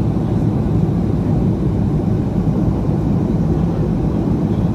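Ryanair Boeing 737 jet noise: a steady, low rumble with no distinct thump or change.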